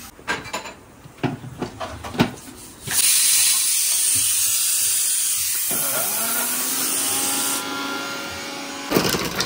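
A few knocks and clicks, then an electric kitchen blender (mixer-grinder) starts abruptly about three seconds in. It runs steadily for about six seconds, blending a mango shake, its pitch shifting upward partway through, and stops shortly before the end.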